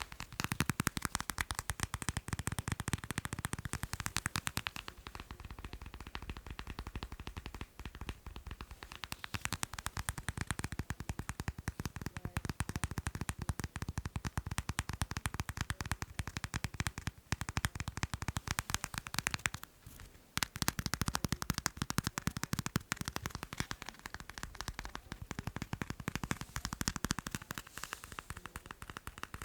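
Fast tapping on macarons: a dense, continuous run of quick light taps, with a brief pause about twenty seconds in.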